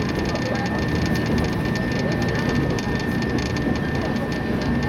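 Steady running noise inside a JR West 115 series electric train travelling at speed: a low rumble of wheels and motors with a thin, steady high tone over it.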